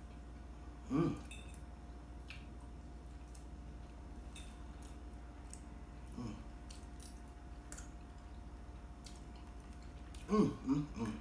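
A metal fork clicking and scraping against a ceramic plate while a man eats, with a few short hummed vocal sounds, the loudest near the end.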